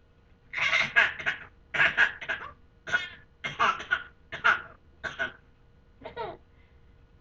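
A baby giggling in a run of about seven short bursts, each well under a second long, with brief pauses between.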